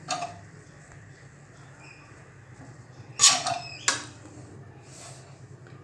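Metal spatula scraping and knocking against a wok while stirring fried noodles, in a few short strokes, the loudest about three seconds in, over a low steady hum.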